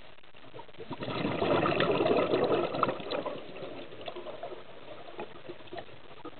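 Scuba diver's exhaled air bubbling out of a regulator underwater: a gush of bubbles that starts about a second in and fades out after about three seconds, leaving scattered small crackles.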